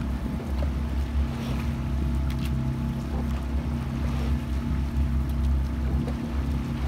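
Outboard motor of a coaching launch running steadily at low speed, a constant low hum, with water rushing along the hull and a few faint clicks.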